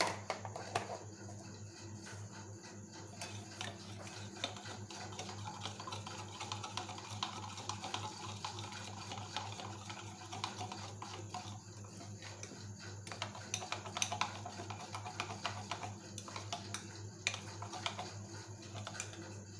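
Small, irregular clicks and taps of a spoon against a bowl and spice containers as spices are added to eggs, over a steady low hum.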